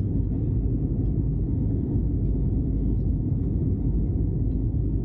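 Steady low rumble that does not change or break.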